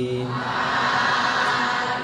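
A Buddhist monk's Pali chant ends in the first half-second, and a congregation answers with many voices chanting together in unison.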